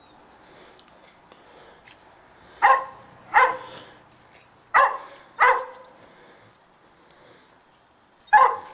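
Dog barking: five loud, short barks, two quick pairs about a second apart in the middle and a single bark near the end.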